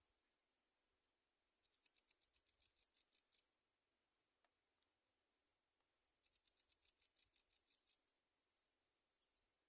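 Near silence, broken twice by a run of faint, rapid high-pitched ticking lasting about two seconds: once about a second and a half in, and again about six seconds in.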